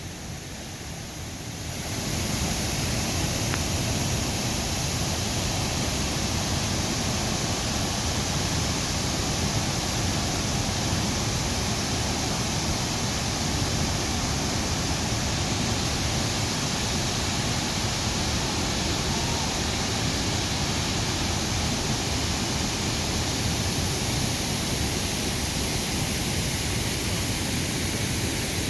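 Steady rushing roar of a waterfall, swelling to full strength about two seconds in and holding even.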